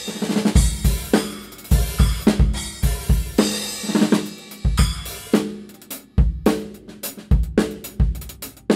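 Drum kit groove played on Sabian B8 bronze cymbals and a Mapex kit: kick, snare and hi-hat strokes with crash cymbal hits every second or so, the cymbals ringing on between strokes.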